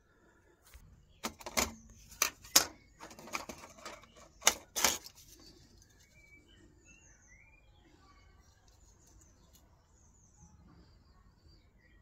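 Plastic housing of a Huawei mobile WiFi hotspot clicking and snapping as it is prised apart to free the circuit board: a run of sharp clicks over about four seconds, the loudest near the start and again past the middle. Faint bird chirps follow.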